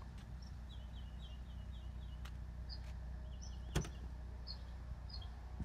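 Power liftgate of a 2017 Mercedes-Benz GLS450 opening: a sharp latch click about four seconds in, then its motor running faintly. Birds chirp in the background.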